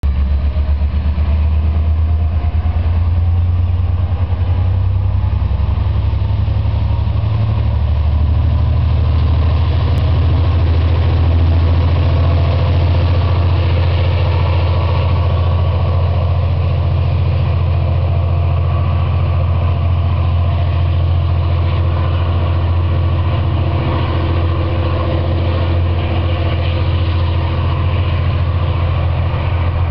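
V/Line A class diesel-electric locomotive's EMD two-stroke engine working steadily as it draws a passenger train out of the station and past, a loud low drone throughout. More of the engine's mid-range tones come through from about halfway.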